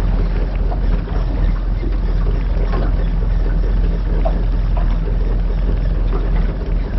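Small boat's outboard motor idling steadily.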